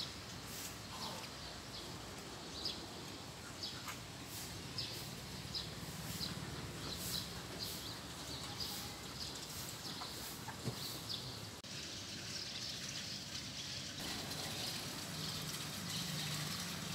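A small bird chirping over and over, short high calls about one or two a second, over steady outdoor background hiss.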